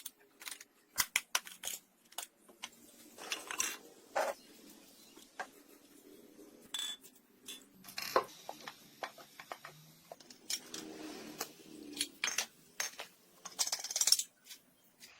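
Metal tools and parts being handled: an irregular string of sharp clinks and knocks, with short rattling stretches now and then.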